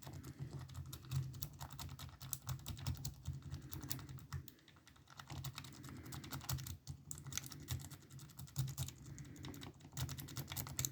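Rapid, irregular clicking and scraping of a lock pick being rocked in the keyway of a Ruko pin-tumbler cylinder, its pins clicking against the pick under tension, with a short pause about four and a half seconds in.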